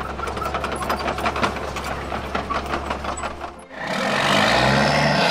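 Remote-control Caterpillar toy bulldozer driving: its small electric motor and gearing hum steadily under a rapid, even clicking from the tracks. The clicking cuts off a little over three and a half seconds in, and a louder, rougher noise follows.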